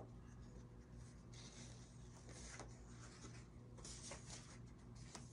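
Near silence: a steady low room hum with a few faint, soft rustles of tarot cards being handled.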